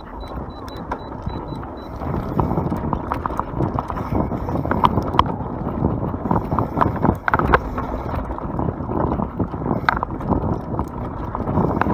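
YT Capra mountain bike riding fast down a dirt trail: knobby tyres rumbling over the ground with the chain and frame rattling and clicking over bumps. It gets louder about two seconds in.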